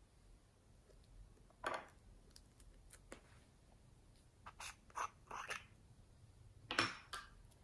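Small plastic cosmetic pots handled and a lid twisted open: a handful of short scratchy scrapes and clicks of plastic on plastic, the loudest near the end.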